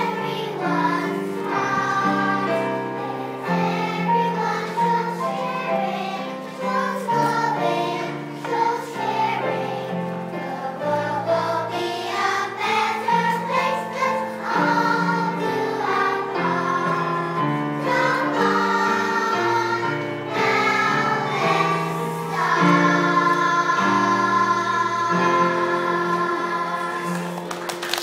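Primary school children's choir singing, ending on a long held chord near the end.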